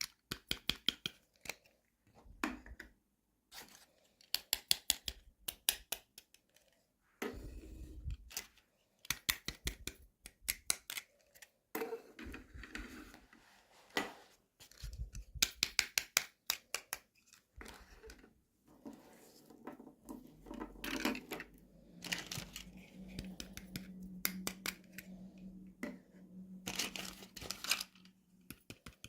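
Toy packaging being handled and opened by hand: quick runs of sharp clicks and snips, with short pauses between them.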